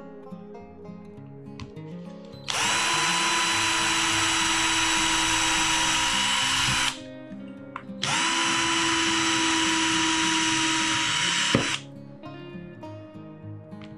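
Cordless drill boring holes in a plate. It runs twice for about four seconds each with a steady whine, starting and stopping abruptly, over background music.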